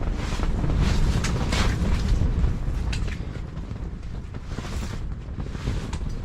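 Wind buffeting the microphone: a low rumble that is strongest in the first half and eases off after about three seconds.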